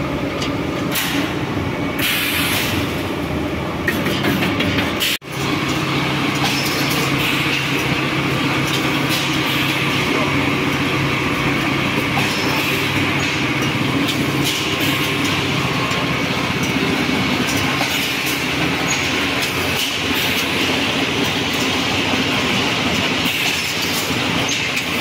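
Automatic welded-wire-mesh machine running: its pneumatic welding heads clatter with many short clicks over a steady machine hum as the wire mesh is fed and welded. The sound briefly drops out about five seconds in.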